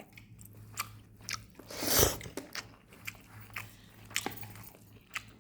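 A person chewing and biting into chicken, heard close up as a run of short wet clicks, with one louder bite about two seconds in.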